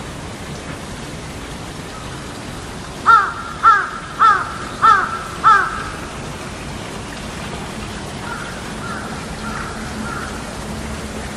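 A crow cawing five times in quick succession, about two caws a second, then four fainter caws a few seconds later, over a steady background hiss.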